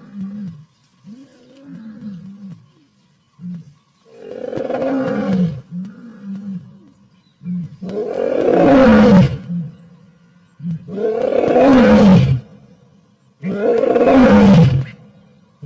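Male lion roaring in a territorial bout: a few short, soft low calls build into four long, loud roars about three seconds apart, each falling in pitch.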